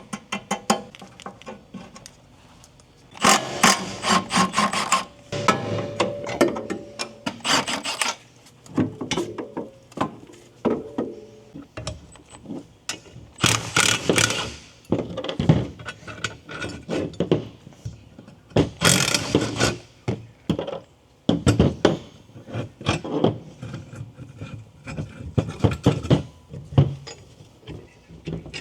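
Hand tools working on a car's rear suspension: irregular metallic clicks, clanks and scraping as fasteners are worked and the upper control arm is handled, with ratcheting in places.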